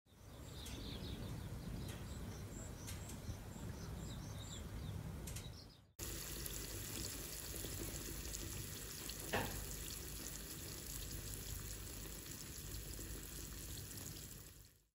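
A wood-stove fire burning, with a few sharp crackles. After a cut, olive oil sizzling steadily in a cast-iron skillet of shiitake and leek ahijo.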